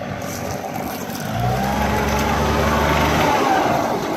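An engine running steadily for about two seconds, starting about a second in, with a faint whine that rises and then falls.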